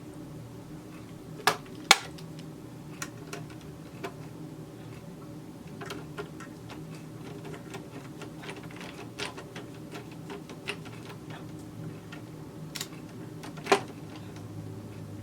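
Small metallic clicks and taps as a replacement upper knife and screwdriver are handled against a Brother 1034D serger while the knife is fitted into place. There are two sharp, louder clicks about two seconds in and another near the end, over a faint steady hum.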